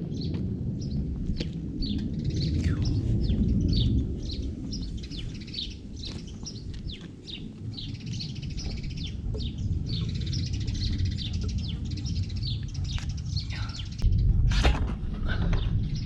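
Small birds chirping in quick, repeated short calls, over a loud low rumble that swells a few seconds in and again near the end.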